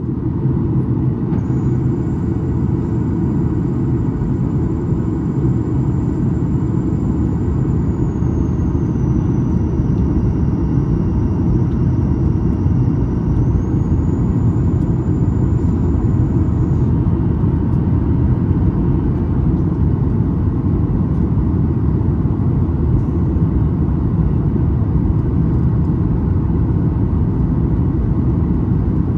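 Steady low cabin roar inside a Boeing 737 MAX 8 on descent: the CFM LEAP-1B engines and airflow as heard from a window seat just behind the wing. A faint high whine sits over the roar for the first half, dips in pitch for a few seconds, comes back up, then stops.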